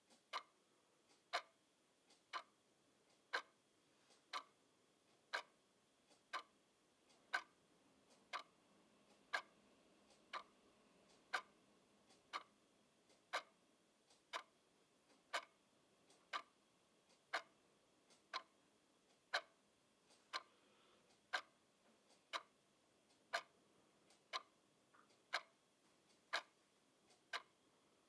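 A clock ticking steadily, one sharp tick about every second.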